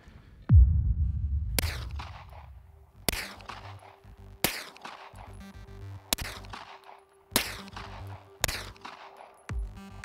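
Electronic music opens with a deep falling bass hit. Six sharp shots from a Flux Raider-X, a sub-gun conversion of a Sig P320 pistol, are fired at slow, even intervals, each ringing out. A pulsing bass beat starts near the end.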